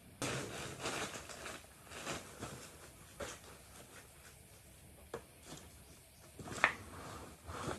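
Handling noise as a wooden speaker cabinet is shifted and pulled out from among plastic sacks and cardboard: rustling and scraping at first, then a few scattered knocks, the sharpest about two-thirds of the way in.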